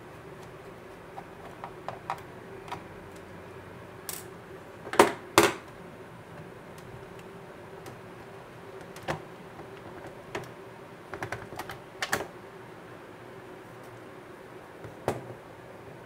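Scattered small plastic clicks and taps from hand work on an Acer Aspire E5-574 laptop's bottom cover, as the last screws come out and the cover is prised loose from its clips. The loudest is a pair of sharp clicks about five seconds in.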